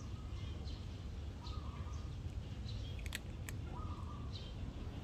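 Birds calling: a short, flat call repeating about every two seconds, with brief higher chirps between, over a steady low background rumble. Two sharp clicks a little past the middle.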